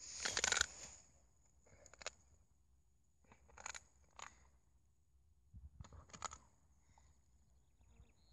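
Schnauzer biting and chewing at a snake in dry grass: irregular bursts of crunching and rustling, the loudest in the first second, then shorter bursts with quiet gaps between.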